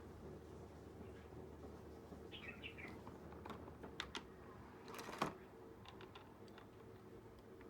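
Faint scattered clicks and taps, the loudest cluster about five seconds in, with a few short chirps a little over two seconds in.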